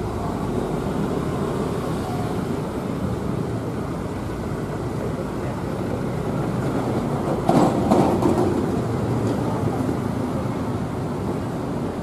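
CC 203 diesel-electric locomotive running at low speed, its diesel engine rumbling steadily as it moves over grass-covered track. A short burst of knocking and clatter from the wheels and running gear comes about two-thirds of the way in.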